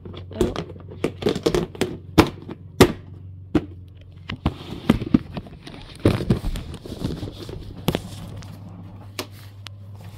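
Hard plastic storage box and the dog-grooming tools inside it clattering as they are handled and the lid is fitted: a run of irregular sharp clicks and knocks, thinning out later. A steady low hum runs underneath.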